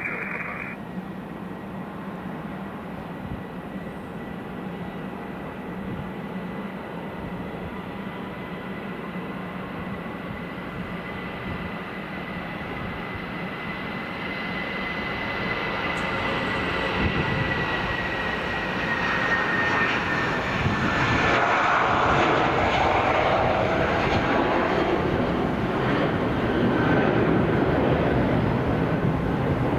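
Jet aircraft engines running with a steady rush and a thin high whine. About halfway through the sound grows louder and the whine drops a little in pitch as the aircraft passes.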